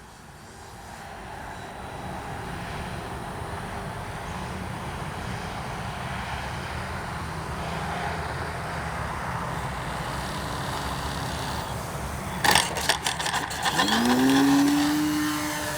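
Electric RC airplane with a Spektrum Avian 4250-800Kv brushless outrunner motor and a 13x6.5 propeller, heard as a steady rushing noise. About twelve seconds in come a burst of clicks and rattles, then the motor whine rises in pitch and holds.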